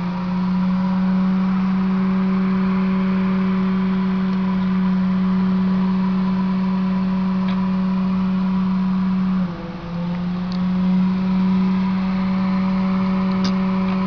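Steady machine hum from running lab equipment, with a clear low pitch and overtones. About nine and a half seconds in, the pitch briefly sags and climbs back, and a few faint ticks follow near the end.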